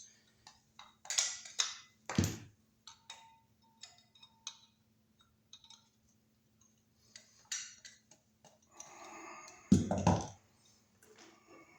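Hand tools clicking and knocking against an electrical box as small knockout tabs are broken out to open notches, with two heavier thumps about two seconds in and near the end.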